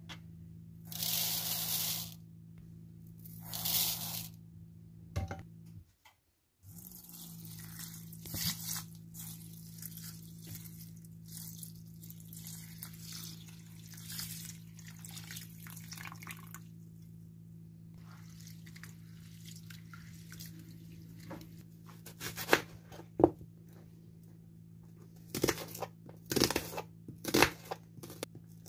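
Water poured from a bottle onto rice in a bowl, splashing and trickling. Near the end, a knife slices a red onion on a plastic cutting board, giving sharp clicks. A steady low hum runs underneath.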